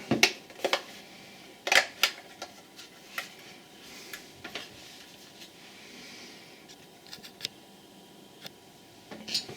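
Clicks and taps of a screwdriver and small screws on a cheap plastic alarm clock case as it is unscrewed and opened, the loudest clicks near the start and about two seconds in, then lighter scattered ticks.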